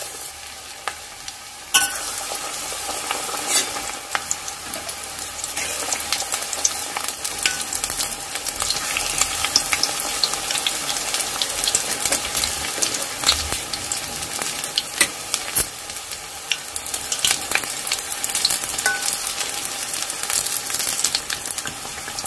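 Batter-coated capsicum pieces deep-frying in a kadai of hot oil: a dense sizzling crackle with many small pops, which steps up in loudness about two seconds in.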